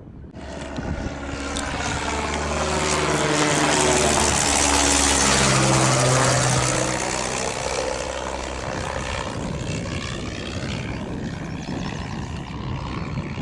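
An aircraft passing close by, its engine sound swelling to a peak about four to six seconds in, with its engine tones dropping in pitch as it goes past, then easing to a steadier, quieter rumble.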